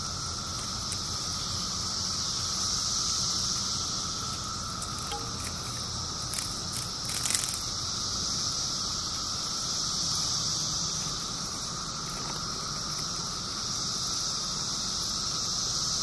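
Steady droning chorus of periodical cicadas, an even high buzz that does not change. About seven seconds in comes a brief burst of scratchy clicks.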